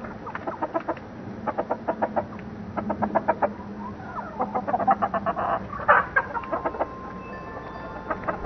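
Backyard hens clucking, in quick runs of short clucks that come one after another through the whole stretch.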